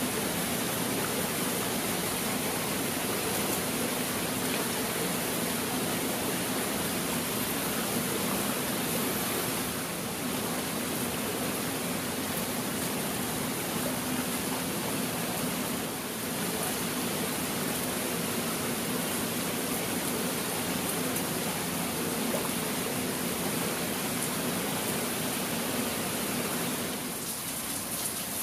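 Steady rain falling on wet stone paving, rocks and foliage: an even hiss.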